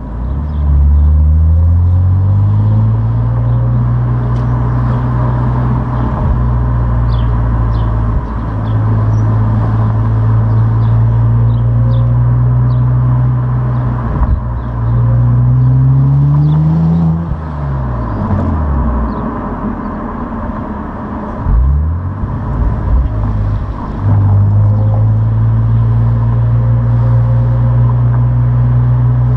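Opel Insignia OPC's turbocharged V6 through its stock exhaust, pulling up through the revs and then cruising at a steady pitch. About halfway through it climbs again and then falls away, gives a short rev a few seconds later, and settles back to steady running.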